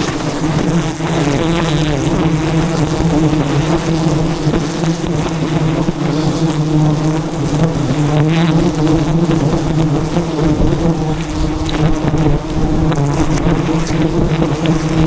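A dense swarm of giant honey bees buzzing loudly and steadily: a thick hum whose pitch wavers.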